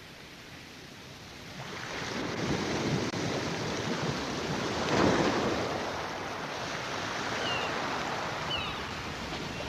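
Sea waves breaking on a beach: the surf swells up about two seconds in, is loudest about five seconds in as a wave crashes, then settles into a steady wash.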